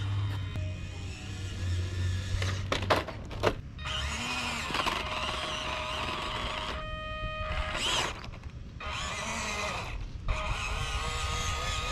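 A 1/18-scale RC crawler truck's small electric motor and gears whine as it drives. The whine stops and starts several times in short stretches, with a few sharp clicks about three seconds in.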